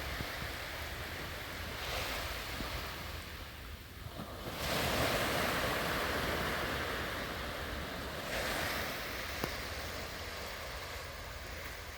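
Sea waves breaking and washing up a sandy beach, the surf swelling three times, loudest about four and a half seconds in, with a low wind rumble on the microphone.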